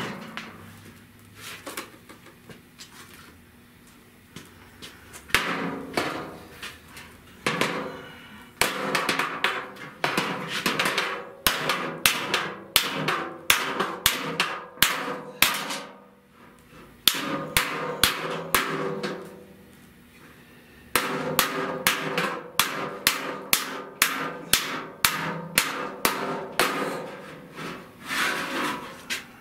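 Body hammer striking the steel sheet of a 1970 Buick Wildcat fender, beating out dents in quick runs of about two to three blows a second with short pauses, each blow leaving a metallic ring in the panel. The blows start about five seconds in.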